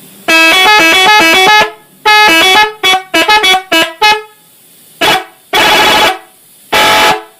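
Telolet bus horn, a multi-tone musical air horn, playing a tune. Two longer phrases of stepped notes are followed by a quick run of short notes and then three separate blasts near the end.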